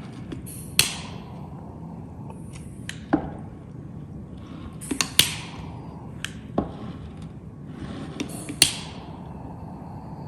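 A sharp click about every three to four seconds, each followed by a short hiss, with fainter taps in between.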